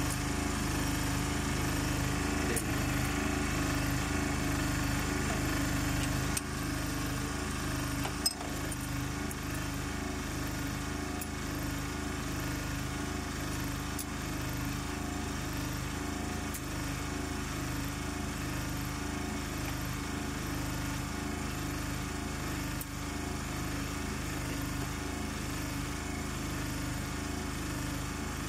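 Steady drone of an engine or motor running, pulsing evenly, with one sharp metallic tick about eight seconds in.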